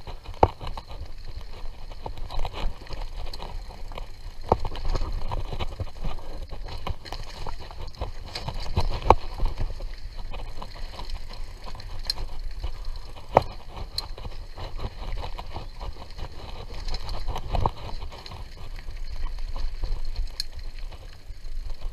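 Mountain bike ridden along a dirt trail: a continuous rumble from the tyres, with rattling and many sharp knocks from the bike over bumps.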